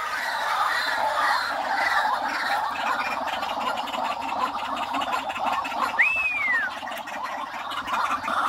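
A dense, continuous chorus of calls from many caged birds, with one clear whistle that rises and then falls about six seconds in.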